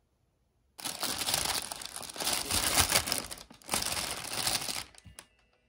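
Thin plastic delivery bag crinkling and rustling as it is handled, in two long stretches with a brief pause between them, then a few faint ticks near the end.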